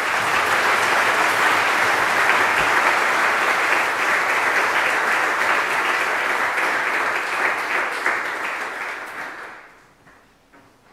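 Audience applauding, a dense, even clapping that holds steady for about nine seconds and then dies away near the end.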